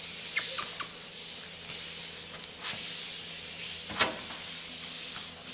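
Motorized treadmill running with a steady hum and hiss, a puppy walking on its belt, with irregular clicks and clinks over it; the loudest clink comes about four seconds in.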